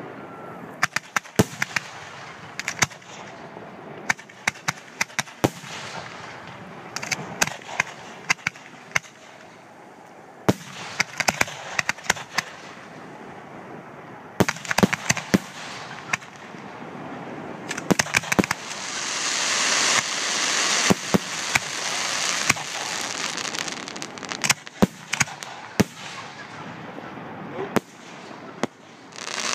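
Fireworks display: sharp bangs of shells and comets going off in irregular succession, a few at a time. About two-thirds of the way in comes a longer stretch of dense hissing crackle.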